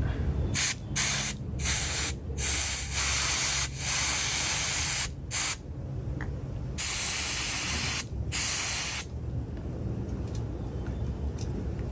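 Pressurised spray hissing in about eight short bursts over the first nine seconds, then stopping, with a low steady hum underneath.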